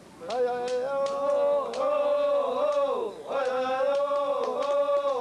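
Indigenous men chanting in long, gently wavering held notes, with a short break about three seconds in. Sharp clicks or taps sound along with the chant.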